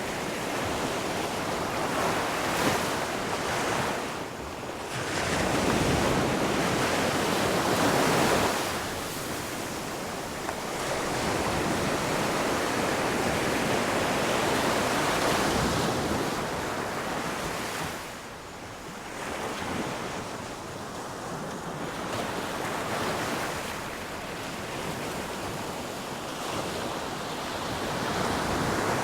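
Ocean surf crashing on a shore, the waves swelling and falling away over several seconds at a time, quieter for a few seconds just past the middle.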